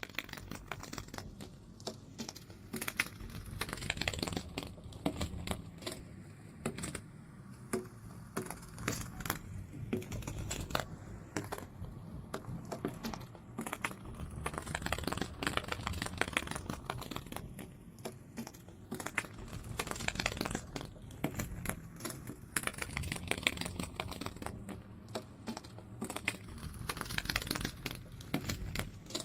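Butterfly wings fluttering close to the microphone: rapid, irregular papery ticks and rustles that come in clusters, with short lulls between.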